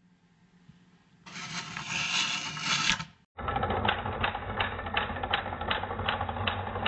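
Rotary telephone dial, slowed to about quarter speed: wound round to the 0 finger stop with a scraping whirr, then running back under its governor with a steady train of about ten clicks, the ten dial pulses that send the digit 0.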